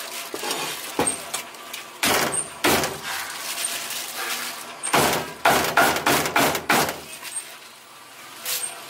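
Heavy cleaver chopping roast duck on a chopping block: a few separate chops, then a quick run of about six chops in a row past the middle.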